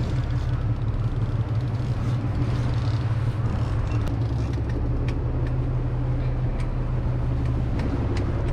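Fishing boat's engine running steadily under way, a constant low hum, with a few faint clicks.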